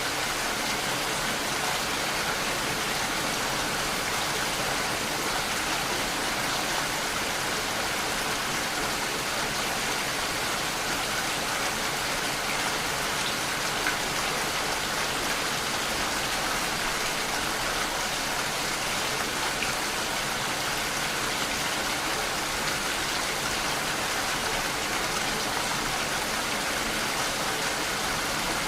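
Steady rain falling on a surface, an even unbroken hiss with no change in intensity.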